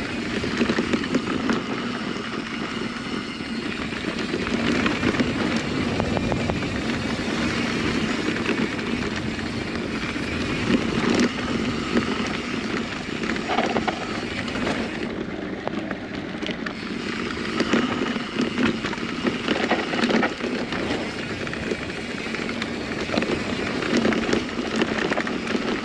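Santa Cruz Bullit electric mountain bike riding a dry dirt singletrack: a steady rolling rumble from tyres and bike, with frequent clicks and rattles over bumps.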